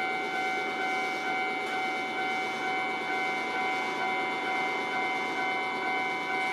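Japanese railway level-crossing warning bell ringing, an electronic clang repeating about two to three times a second, over the steady rumble of a train.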